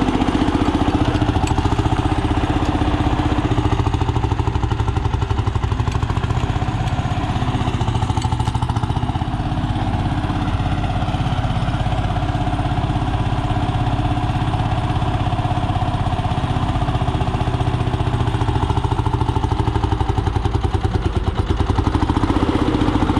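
Antique Lanz 24 tractor's engine running steadily through its original silencer as the tractor is driven, with an even, rapid exhaust beat.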